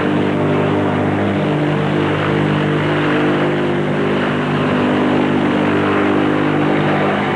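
Convair XFY-1 Pogo's turboprop engine and contra-rotating propellers running with a steady drone, its pitch shifting slightly about a second and a half in.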